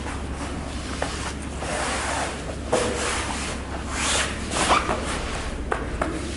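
Foam carpet underlay being handled and laid on the floor: rustling and swishing of the foam sheet, with a few short knocks and clicks, over a steady low hum.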